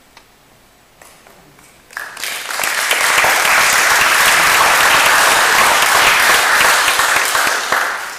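Audience applauding, starting about two seconds in, quickly swelling to a steady clapping, then fading near the end.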